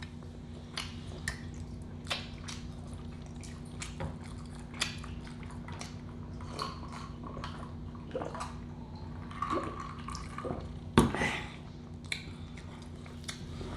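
Close-miked eating sounds: wet chewing and lip smacks with scattered small clicks, over a steady low hum. One louder smack about eleven seconds in.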